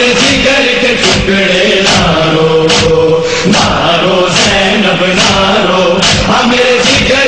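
A male voice chanting a noha (Shia lament) in long, drawn-out held notes, over a steady beat a little under once a second.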